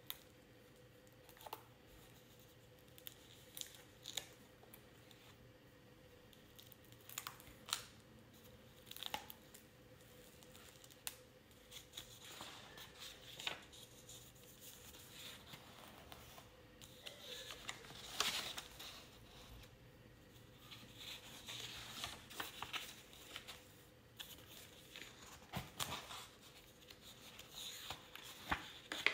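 Paper pages being turned and handled, with scattered soft rustles and flicks that get busier in the second half. A faint steady hum runs underneath.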